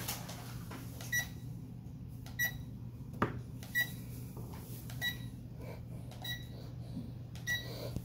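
Short high electronic beeps, six in all, about one every second and a quarter, from a toy remote-control helicopter set that is powered on with its rotors still stopped. A steady low hum runs underneath, and there is a single sharp click about three seconds in.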